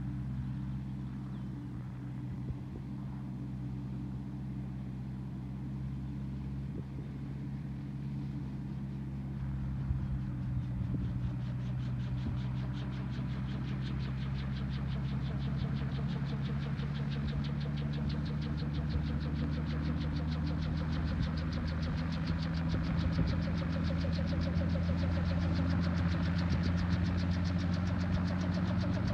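Gyrocopter's engine and pusher propeller running on the ground before takeoff, a steady engine note that slowly grows louder. From about ten seconds in a fast rhythmic chop comes in and strengthens as the rotor spins up.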